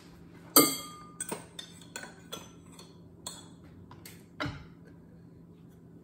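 A measuring cup clinking and tapping against a mixing bowl as powdered sugar is knocked out of it: one sharp, ringing clink about half a second in, then a string of lighter taps, ending with a duller knock about four and a half seconds in.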